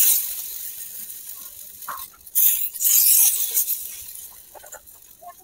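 Vegetable pancake batter sizzling as spoonfuls hit a hot miniature iron pan: a loud hiss fading away at the start, then another about two and a half seconds in that also fades. Small clinks of a metal spoon against the pan and bowl come in between.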